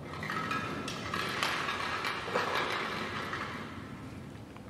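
Plastic draw balls and paper slips being handled: a run of small clicks and rustling that fades off toward the end.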